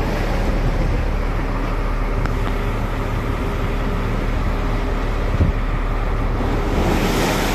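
Fishing trawler's engine running with a steady low drone, over the wash of rough, choppy sea.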